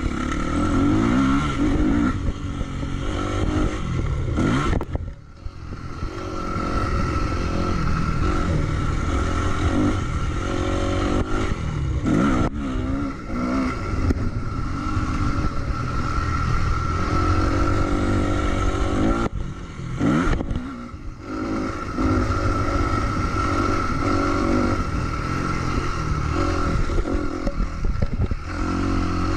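Motocross dirt bike engine revving up and down through the gears as it is ridden around a dirt track, heard from a camera on the bike. The throttle shuts off briefly about five seconds in and again around twenty seconds in before the engine picks up again.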